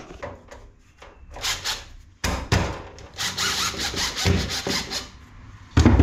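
A galvanised steel boiler wall jig being handled and scraped against a brick wall: a series of rough scraping and rubbing strokes, ending in a sharp knock near the end as the plate meets the wall.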